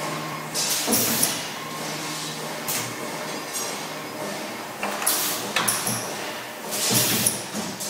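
Three-axis tube-bending machine running through a bend: a steady hum from the machine with several short bursts of hiss and clinks as the bending head moves.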